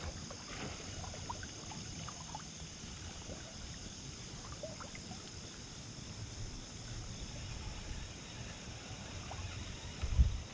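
Steady running of creek water, with a low rumble of wind on the microphone and a brief low thump near the end.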